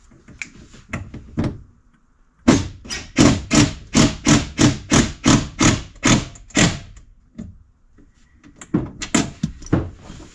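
Repeated sharp knocking strikes, as of a hammer or tool hitting the machine's parts. A few knocks come first, then a quick even run of about fourteen at three or four a second, then a few more near the end.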